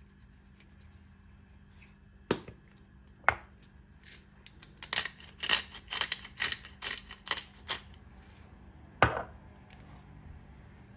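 A series of sharp taps and knocks of small hard objects being handled: two single knocks, then a quick run of about a dozen taps, then one more knock.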